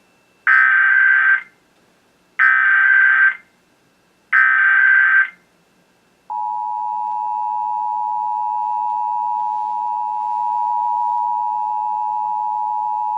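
Emergency Alert System SAME header: three bursts of digital data screech, each about a second long and about two seconds apart. About six seconds in, the steady two-tone EAS attention signal starts and keeps sounding. Together they mark the start of a Required Monthly Test alert.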